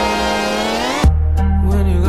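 Background music: sustained synth tones gliding upward, then cutting off about halfway through into a deep bass note and a sharp beat.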